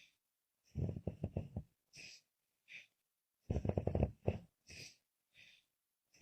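A woman snoring in her sleep: two low, pulsing snores about a second long and roughly three seconds apart, with short hissing breaths between them.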